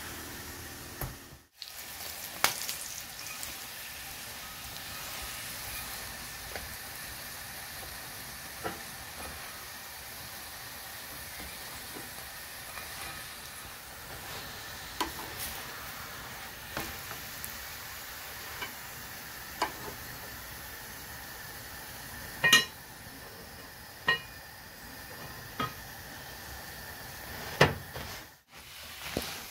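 Paratha flatbread frying on a nonstick tawa, a steady sizzle, with scattered sharp clicks of a spatula tapping and scraping the pan as the bread is pressed and turned.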